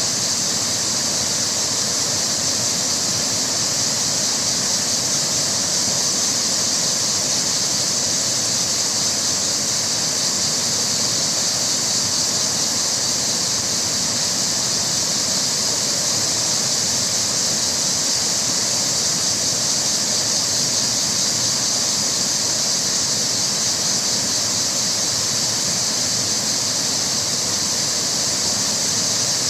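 Rushing river water running over rocks, a steady, even hiss with a bright, high edge.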